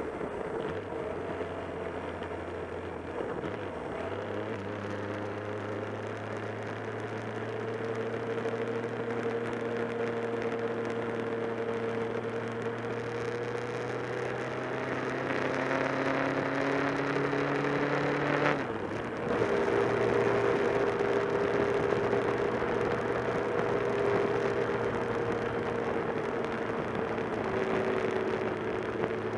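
Motorcycle engine running at road speed under wind rush. The engine note climbs slowly, breaks off briefly about two-thirds through and comes back lower, as with an upshift, then holds steady.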